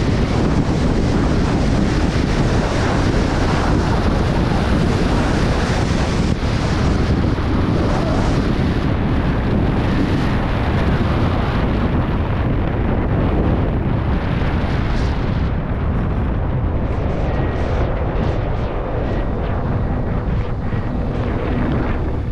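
Wind buffeting the camera microphone while skiing fast downhill at about 65–70 km/h, mixed with the skis running over packed snow. The rush thins out over the last several seconds as the skier slows.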